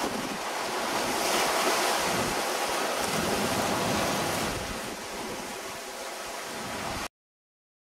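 Wind buffeting the microphone over the rush of choppy sea around a sailing yacht under way, a steady noise that cuts off suddenly about seven seconds in.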